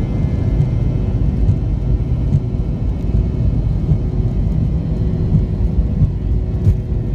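Cabin noise inside a McDonnell Douglas MD-88 rolling on the ground: a steady low rumble with a faint, even whine from its rear-mounted Pratt & Whitney JT8D turbofans.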